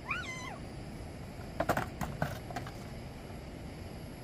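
A cat meows once, briefly, with a rising-then-falling pitch, followed by a few light knocks a second and a half later.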